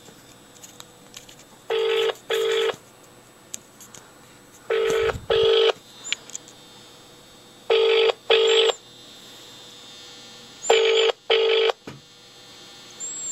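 British-style telephone ringing tone, the double 'brr-brr' heard by a caller while the other phone rings: four double rings about three seconds apart, with no answer.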